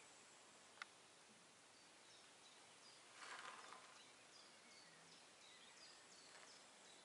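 Faint birdsong: a small bird repeating short, high, falling chirps, about two a second, over a quiet outdoor background. A single sharp click comes just under a second in, and a brief rustle about three seconds in.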